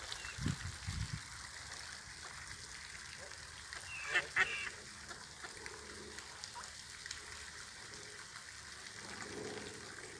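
A waterfowl gives two short honking calls in quick succession about four seconds in. There are a couple of low thumps just after the start, and a faint steady background throughout.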